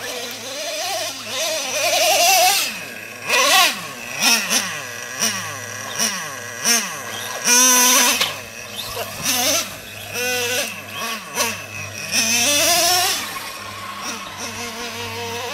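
Nitro RC truck engine buzzing and revving hard, its pitch rising and falling again and again as the throttle is worked, with short loud full-throttle blasts.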